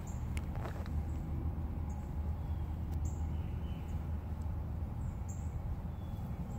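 Outdoor background: a steady low rumble with a few short, high bird chirps scattered through.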